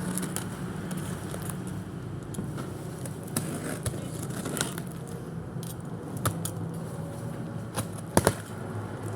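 Items and packaging being handled during an unboxing: scattered light clicks and taps of hard plastic, with a sharp double click about eight seconds in, over a steady low hum.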